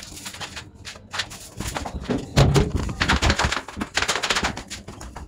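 Footsteps and handheld phone handling: irregular knocks and thumps with rustling, growing louder about two seconds in, as someone walks through the house past a short flight of stairs.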